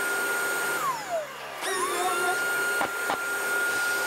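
Random orbital sander with dust extraction, sanding car-door primer with P500 paper: a steady high whine over extraction hiss. The sander winds down about a second in, spins back up and runs steadily, then winds down again at the end. Two sharp clicks come about three-quarters of the way through.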